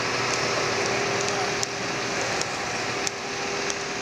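Steady hissing background noise with a faint constant hum and a few light ticks scattered through it.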